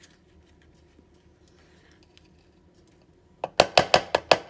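Quiet room, then about three and a half seconds in a quick run of sharp clacks and taps, roughly eight in a second, as avocado is put into a plastic manual food processor bowl.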